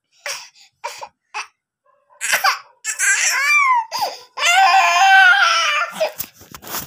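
A toddler crying: a few short sobs, then longer wailing cries, the longest past the halfway point. A few sharp knocks come near the end.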